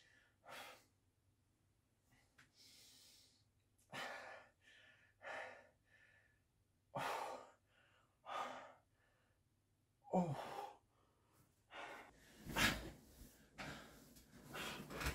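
A person in bed breathing heavily and sighing, with a loud breath every second or two, as if sleeping restlessly. Near the end come denser, closer-spaced noisy sounds of movement.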